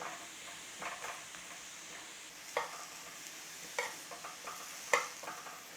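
Cubed tomatoes sizzling in a hot pan as they are charred and blackened, a steady faint hiss with a few sharp crackles, the loudest about five seconds in.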